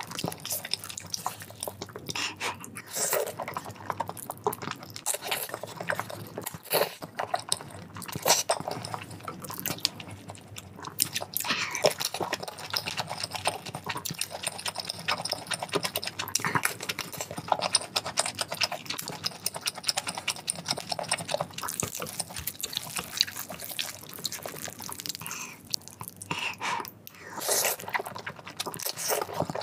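A person eating instant noodles: slurping them up and chewing with wet, smacking mouth sounds, with irregular bites throughout.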